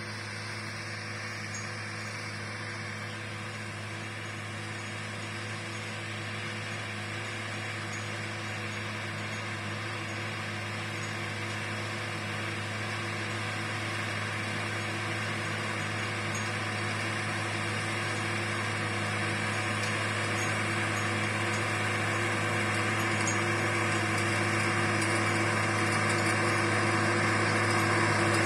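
New Holland TS6.125 tractor's diesel engine running steadily under load while pulling a ridging and ammonia-applicator toolbar through soil. It grows steadily louder as the tractor approaches.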